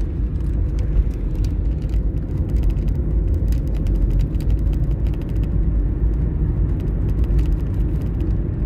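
Car driving along a main road, heard from inside the cabin: a steady low rumble of engine and tyres.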